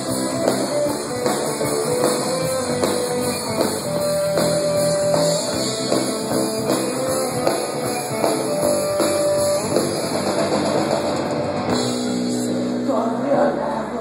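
Live rock band playing through a PA: electric guitars and a drum kit.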